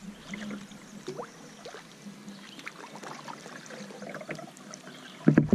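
Kayak paddle strokes in calm river water: drips and small splashes off the blades, with a louder low thump about five seconds in.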